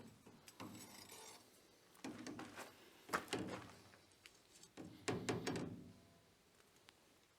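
Hand sanding a Damascus steel knife blade: several short rubbing strokes of abrasive paper on the steel, each with light knocks, spaced irregularly about a second or two apart.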